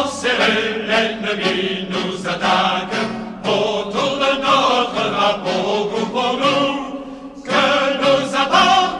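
Choral singing in French with instrumental backing, with a brief dip about seven and a half seconds in.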